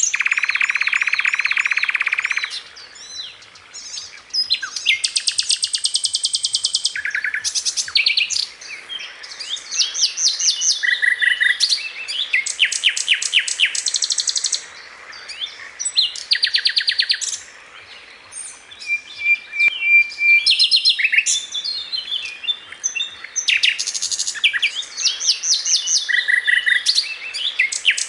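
Sikatan londo, a flycatcher, singing a fast, varied song: rattling runs of rapidly repeated notes, trills and sharp chirps, in phrases broken by short pauses.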